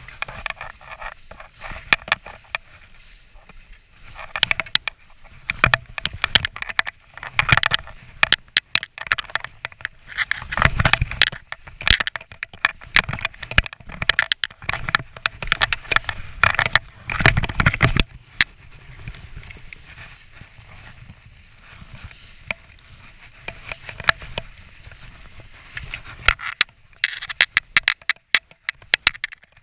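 Skis scraping and carving through snow in uneven surges as the skier turns, with many sharp clicks and knocks throughout.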